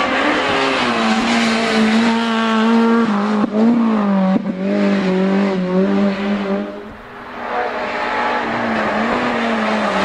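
Honda Civic touring car's engine running at high revs as it climbs out of a hairpin, with two brief breaks in the note as it changes gear about three and a half and four and a half seconds in. The note fades about seven seconds in, and the next car, a Citroën Saxo, is then heard climbing toward the bend.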